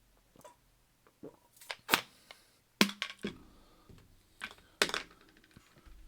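Irregular sharp clicks and knocks of small objects being handled and set down on a desk, the loudest about two, three and five seconds in.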